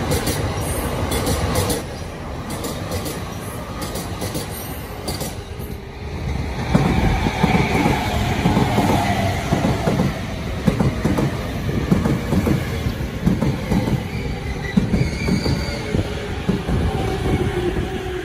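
A JR Sobu Line local electric train moving along the platform and slowing, its wheels clicking rhythmically over the rail joints. From about six seconds in it gets louder, and a motor whine falls steadily in pitch as the train brakes.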